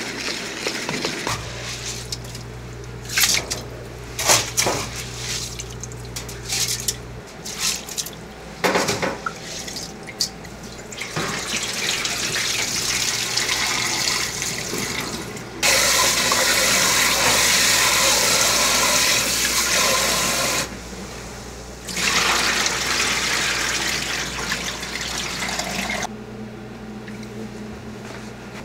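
Kitchen tap water running into a stainless steel bowl of rice being rinsed in a sink. The water is loudest for about five seconds, cuts off suddenly, then runs again for a few seconds. Before the water, there are scattered sharp clicks and knocks of metal utensils against a steel bowl.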